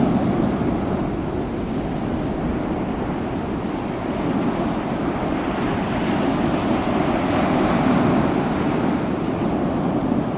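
Ocean surf: waves breaking and washing ashore in a continuous rush that swells and eases, loudest about eight seconds in.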